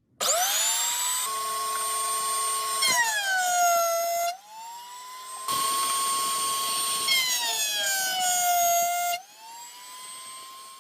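High-pitched whine of a small high-speed electric power tool spinning up, holding, then sagging in pitch. The louder grinding noise cuts off twice while the whine climbs back to full speed.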